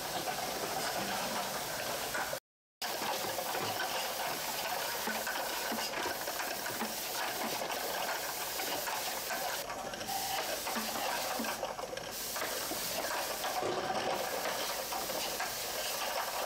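Automatic bottle unscrambler running: a steady hiss with light mechanical rattling. It cuts out completely for a moment about two and a half seconds in.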